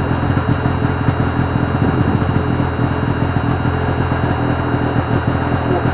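1979 Ski-Doo Blizzard 5500 snowmobile's two-stroke engine running steadily with a fast, even pulsing note.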